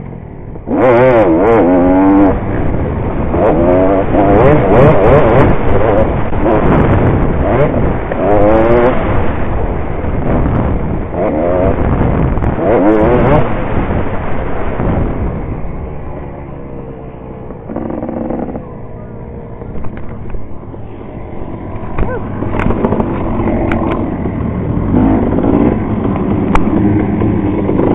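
Off-road dirt bike engine heard from an onboard camera, revving up and down again and again as it is ridden hard around a dirt motocross track. It eases off to a lower, quieter run for a few seconds about two-thirds of the way through, then picks up again near the end.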